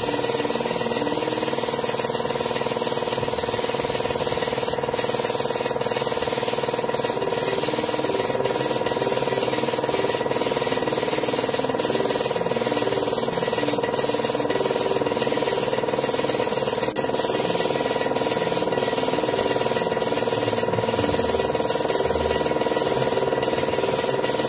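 Compressed-air gravity-feed paint spray gun spraying paint: a steady hiss of air and atomised paint, dipping briefly many times.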